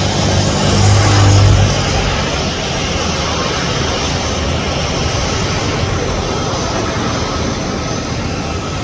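Jet airliner's engines running with a steady, loud noise as the aircraft rolls along the runway, with a stronger low hum about a second in.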